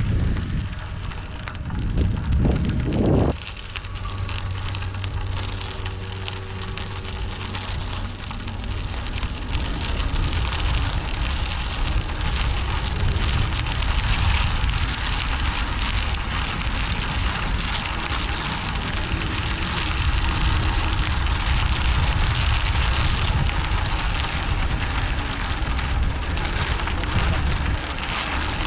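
Bicycle tyres rolling on a loose gravel path, a steady crackling crunch, with wind buffeting the action camera's microphone. The wind thumps most in the first few seconds, and the crunch grows louder about a third of the way in.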